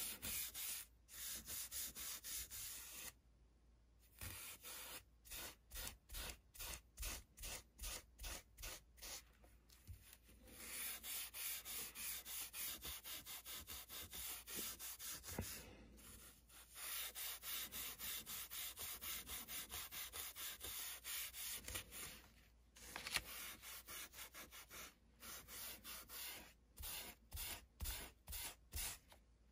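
Scouring pad scrubbed back and forth over a spray-primed paper model roof, sanding through the primer to weather it: a soft, rhythmic scratchy rubbing of about four strokes a second, stopping briefly a few times.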